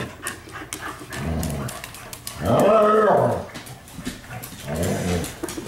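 Husky-mix dog making three drawn-out playful growling calls that rise and fall in pitch, the middle one the loudest, with scattered short clicks between them.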